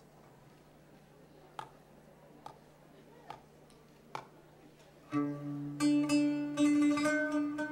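Four soft, evenly spaced taps, then a live band of plucked string instruments, an oud among them, starts up about five seconds in over a held low note.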